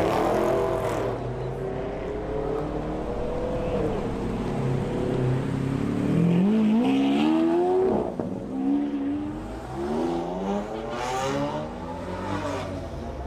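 Performance car engine accelerating hard, its pitch climbing steeply, dropping at a gear change about eight seconds in, then rising again through the next gears.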